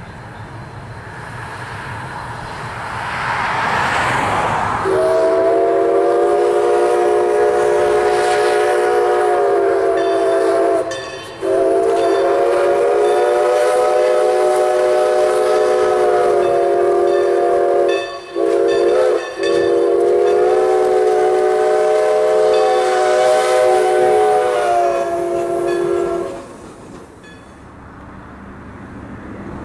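Everett Railroad No. 11, a 2-8-0 steam locomotive, blowing its chime steam whistle in four blasts (long, long, short, long), the grade-crossing signal, as it comes up and passes. Before the whistle, the locomotive's running noise grows as it approaches.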